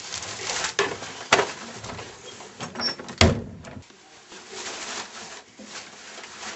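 Rustling and bumping as a person moves about and sits down in a small tiled bathroom, with a sharp knock about a second in and a louder, heavier bang about three seconds in.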